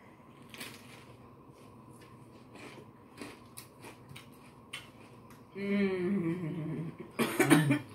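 Crisp crunching as a raw sweet bell pepper stuffed with two Takis rolled tortilla chips is bitten and chewed: a run of sharp crunches. A little past halfway a hummed voice lasts about a second, and a short loud vocal burst near the end is the loudest sound.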